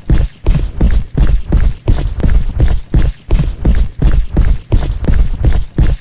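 Heavy footsteps walking at a steady pace, about two a second, each step a deep thud.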